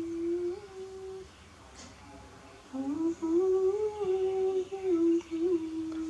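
A person humming a slow tune in two phrases: a short one at the start, then, after a pause of about a second and a half, a longer one that steps up and back down in pitch.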